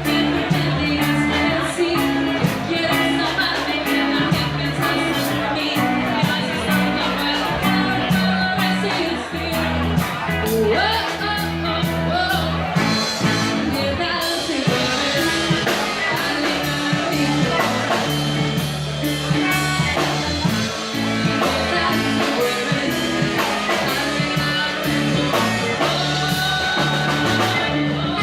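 Rock band playing live with a singer: drums, bass and guitar in a steady beat.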